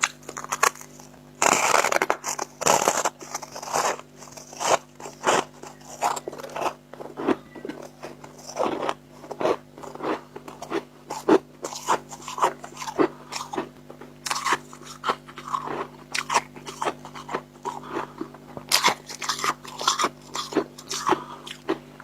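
Dry freezer frost chunks being bitten and chewed close to the microphone: a run of sharp crackling crunches. The loudest cluster of bites comes about one and a half seconds in, with another dense run near the end.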